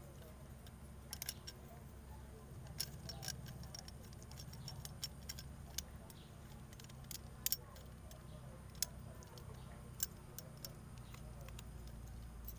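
Scissor blade scraping moss off a hibiscus trunk, with irregular sharp clicks and scratches every second or so.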